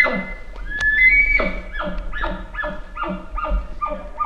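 Bull elk bugle: a high whistle that rises and breaks, a second long whistle, then a run of about nine deep chuckles, roughly three a second.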